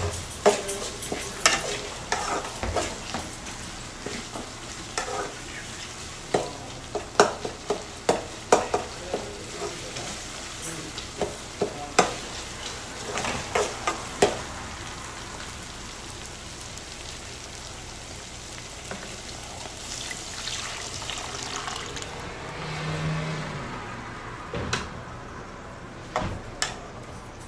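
Onion-tomato masala sizzling as it fries in a metal kadhai, with a metal spatula scraping and knocking against the pan as it is stirred. The knocks come thick over the first half, then mostly steady sizzling with a few more near the end.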